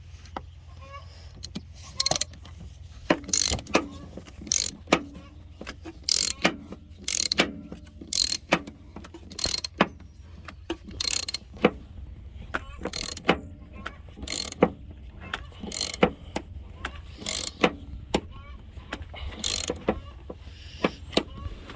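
Ratchet wrench clicking in repeated strokes as a nut splitter is cranked down onto a seized, rusted front shock top nut, about one to two clicks a second.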